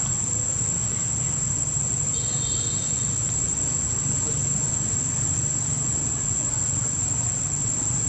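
Steady high-pitched insect drone over a low, even rumble, with a brief faint chirp about two seconds in.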